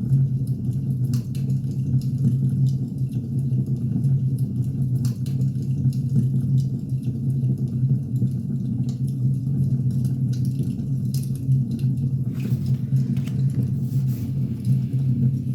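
Wood fire burning: a steady low roar with scattered sharp crackles and pops of burning firewood, a few more crackles coming close together near the end.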